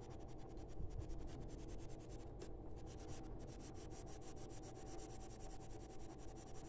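Ochre colored pencil scratching faintly on drawing paper in short hatching strokes.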